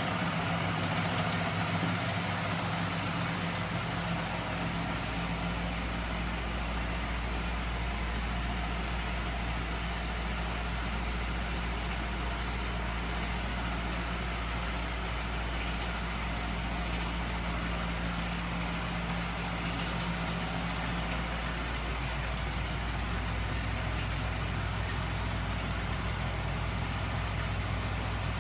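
Homemade magnet engine, driven by a small electric motor, running steadily with a low hum and a few steady tones; about two-thirds of the way through, some of the higher tones drop out while the hum carries on.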